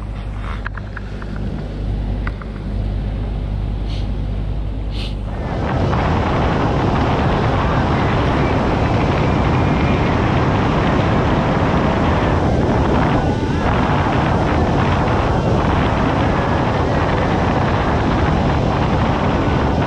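Small boat running under outboard motor power: a steady engine hum for about the first five seconds, then a sudden change to loud wind rushing over the microphone, with water rushing past the hull as the boat runs at speed.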